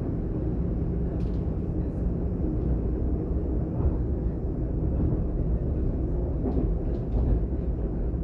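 Interior running noise of a DB Class 422 (Alstom/Bombardier) electric multiple unit under way between stations: a steady low rumble of wheels and running gear, with a few faint clicks.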